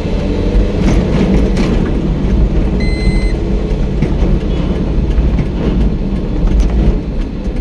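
Steady engine and road rumble heard from inside a moving car's cabin on a highway. About three seconds in, a short high-pitched beep sounds once.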